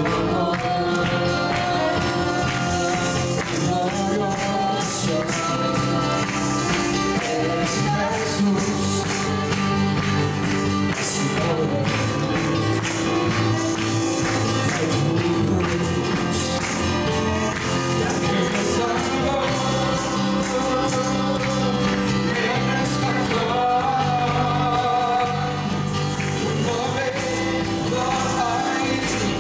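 Live church worship band playing a Spanish-language song, with drum kit, guitar and keyboard under a singing voice, and tambourines being shaken and struck throughout.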